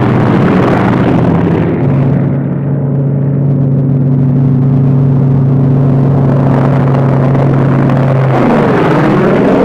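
Radial piston engines of P-47 Thunderbolt fighters running at takeoff power, a loud steady drone; near the end the pitch sweeps down and back up.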